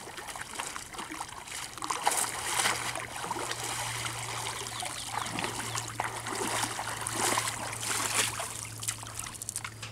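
Water splashing and trickling as a wet cast net is gathered up and lifted out of shallow pond water, water streaming back off the mesh, with splashes of feet wading through the shallows.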